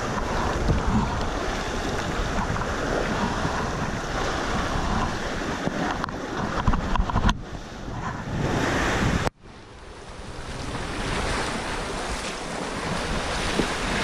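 Sea waves washing against coastal rocks, with wind buffeting the camera microphone. The sound drops out abruptly about nine seconds in, then builds back up.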